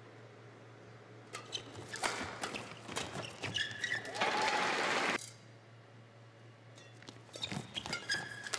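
Badminton match sounds on an indoor court: sharp shuttlecock strikes and shoes squeaking on the court mat. A short burst of crowd noise cuts off suddenly about five seconds in.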